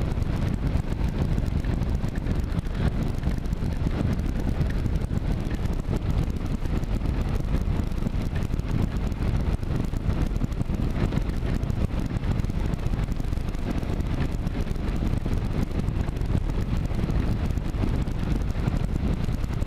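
Kawasaki KLR 650's single-cylinder engine running steadily under way, mixed with steady wind noise rushing over the camera microphone.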